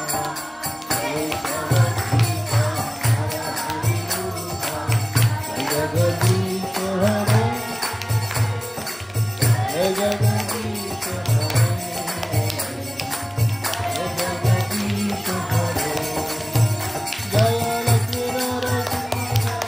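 Devotional kirtan chanting: a man sings over a harmonium's sustained reed chords, a mridanga drum beats a steady low pulse about twice a second, and hands clap along.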